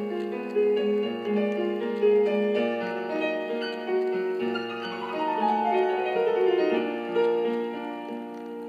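Background piano music: a melody of held notes with chords beneath, and a run of notes stepping downward in the second half.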